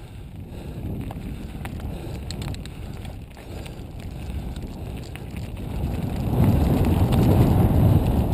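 Mountain bike riding over a dirt and stony trail: tyres rumbling on the ground with small rattles and clicks from the bike and stones, and wind on the microphone. It gets clearly louder about six seconds in as the ground gets rougher or the speed picks up.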